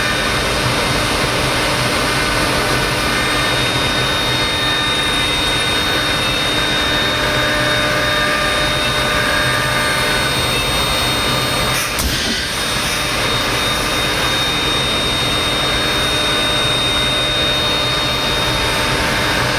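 5-axis CNC router spindle running at a steady high whine as its straight bit mills a carving, with a brief click and dip about twelve seconds in.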